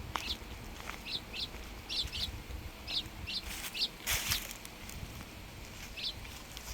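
A small bird chirping: short, high chirps, mostly in quick pairs, repeated through the few seconds. A brief rustle, the loudest sound, comes about four seconds in, over a faint low rumble.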